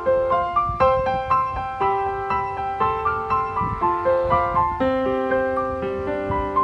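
Background music: a gentle piano melody of held notes at an even pace, with a lower accompaniment joining near the end.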